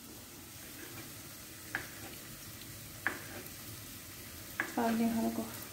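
A knife slicing tomatoes on a plastic cutting board: three sharp taps of the blade reaching the board, about a second and a half apart, over a steady hiss. Near the end a held pitched note, louder than the rest, sounds briefly.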